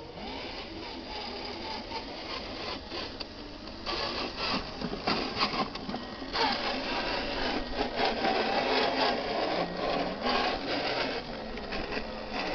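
RC dump truck's small electric motor and gearbox whining, rising and falling in pitch with the throttle, with crackling as the tyres go over loose dirt and stones. It gets louder about four seconds in.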